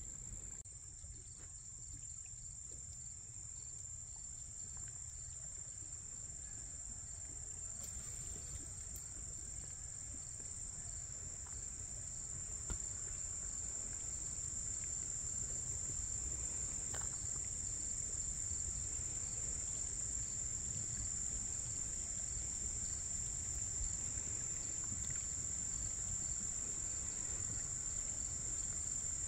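Insects singing in a continuous high-pitched drone that grows slightly louder over time, with a low rumble underneath.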